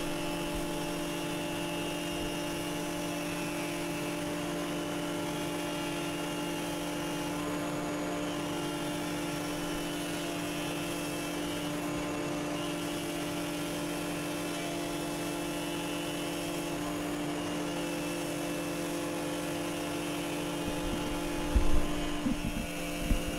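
Hammer A3 31 combination jointer-planer running with a steady hum while a timber is surface-planed on the jointer to a square edge. A couple of short knocks come near the end.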